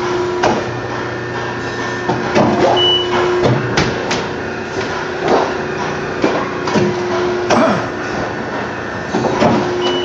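CNC press brake working through a multi-step bend of stainless-steel sheet: a steady hydraulic hum that swells in stretches as the ram and backgauge move, with a sharp clunk every second or two.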